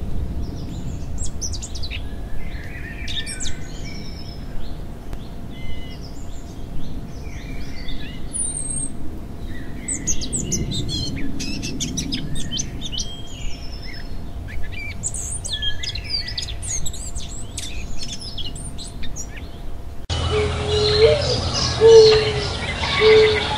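Several songbirds chirping and singing at once, with quick high trills and twitters overlapping. About twenty seconds in, the sound cuts to a different recording where repeated short, lower-pitched bird calls come over a low hum.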